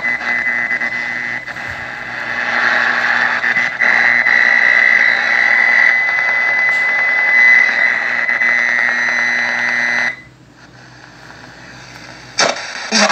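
Solar portable radio's speaker hissing static with a steady high whistle as the tuning dial is turned between stations. The hiss cuts off suddenly about ten seconds in, and a station's broadcast breaks in near the end.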